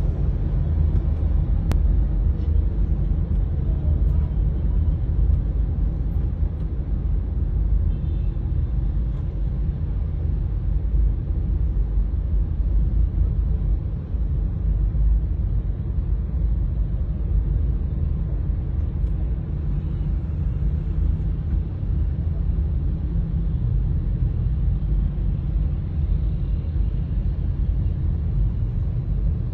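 Steady low road rumble of a car driving in traffic, heard from inside the cabin.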